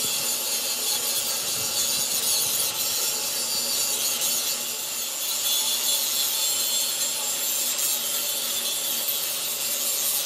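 Handheld angle grinder grinding a cast-iron truck brake drum held in a lathe chuck: a steady, harsh hiss of the disc on the metal over the grinder motor's whine.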